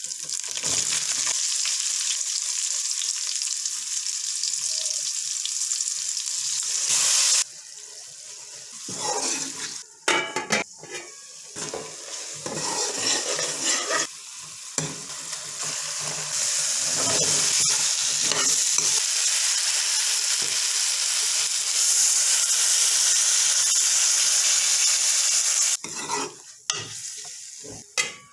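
Food sizzling in a hot pan while being stirred: a steady high hiss with scraping and clatter from the stirring. It drops away abruptly at about seven seconds, comes back in uneven patches, runs strong again through the second half, and breaks up near the end.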